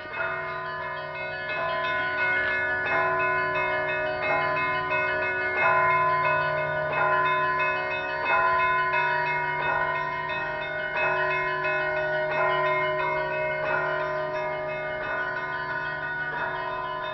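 Russian Orthodox church bells ringing before the evening service: several bells of different pitches struck in a quick repeating pattern, their tones ringing on over one another above a steady low hum.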